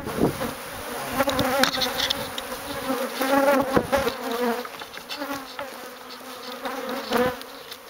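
Many honeybees from a disturbed colony buzzing around the microphone in a steady, wavering drone, with a few light knocks of handling.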